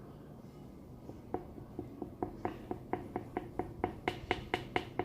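Light, even tapping, like plastic being knocked against plastic. It starts about a second and a half in and settles into about four or five taps a second, growing louder toward the end.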